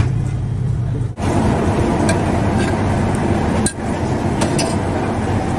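Steady loud rushing kitchen noise with a low hum, changing abruptly twice, with a few light clinks of metal or glass.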